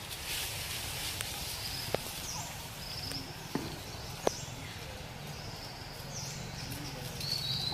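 Outdoor forest ambience: a steady background hiss with short, repeated high chirps, and a few sharp clicks about two, three and a half and four and a quarter seconds in.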